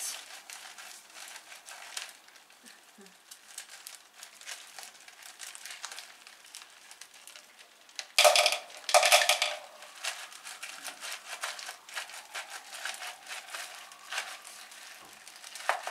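Thin plastic orchid pot crinkling and crackling as it is squeezed by hand to loosen the roots from it, with two louder crunching bursts about eight and nine seconds in.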